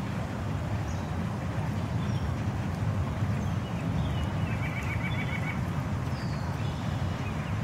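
Steady low rumbling noise of rain. A faint bird trill of about six quick notes comes about five seconds in, with a few fainter chirps around it.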